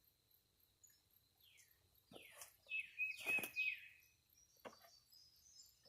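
A songbird singing: a series of falling, slurred whistles, several in quick succession about two to four seconds in, with a short held note among them and one more call near the end.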